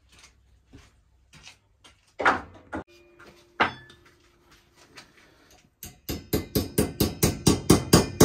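Hammer striking metal on a steel bicycle frame: three separate ringing blows, then from about six seconds in a fast, even run of taps, about four a second.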